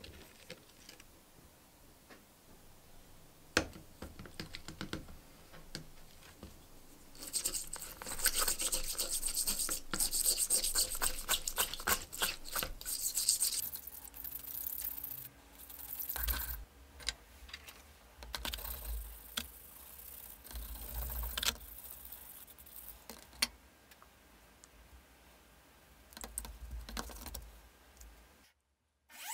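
Straight razor blade being scrubbed and rubbed by hand in a tub of water to strip off the residue loosened by the rust remover: a sharp clink about four seconds in, then a long stretch of quick scratchy strokes, the loudest part, followed by slower, intermittent rubbing and handling.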